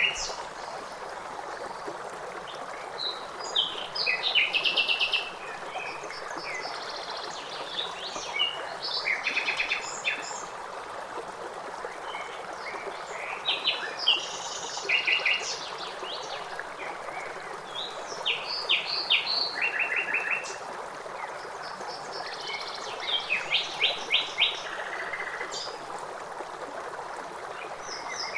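Songbirds chirping and singing in short repeated phrases every few seconds over the steady rush of flowing water.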